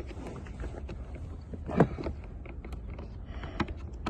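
Scattered clicks and knocks of the blower motor's cover and parts being handled and fitted under a car's dashboard, the loudest knock a little under two seconds in, over a low steady rumble.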